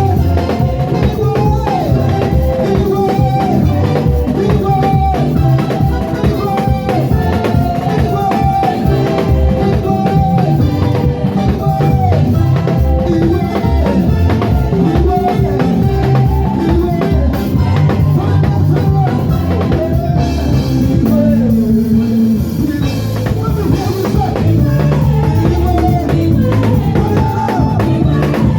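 Gospel praise and worship band playing a medley: drum kit keeping a steady beat over heavy bass, with melodic lines on top.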